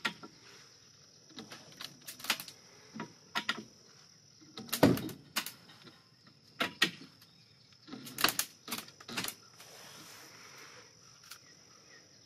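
A Simplex lever-operated ratchet jack worked by its handle, lifting a building's frame: irregular metallic clicks and clanks, a dozen or so, the loudest about five seconds in.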